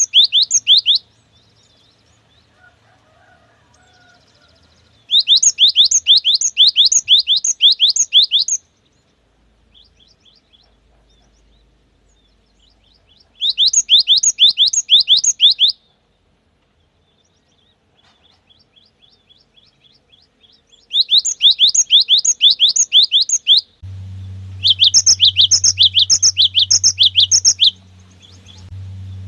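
Cinereous tit (gelatik batu) singing in bursts of rapid, high repeated whistled notes, each burst two to three seconds long with pauses between. About three-quarters of the way in, a low steady hum joins underneath.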